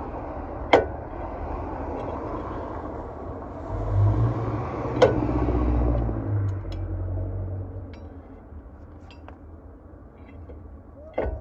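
Shop work on a truck's wheel hub: a few sharp metal clinks of parts being handled and fitted, over a low rumble that swells about four seconds in and fades out after seven.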